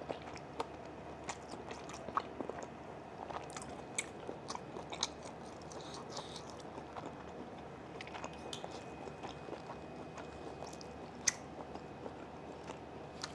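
Quiet chewing close to a clip-on microphone: scattered soft clicks and crunches of food in the mouth, with one sharper click about eleven seconds in.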